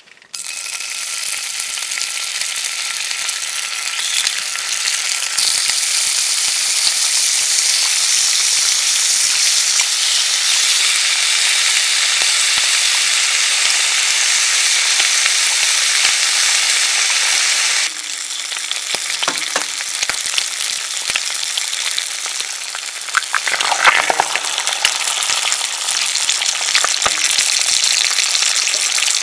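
Food frying in a hot pan, a loud steady sizzle that starts suddenly, eases a little about two-thirds of the way through and carries on, with a few light knocks of a utensil.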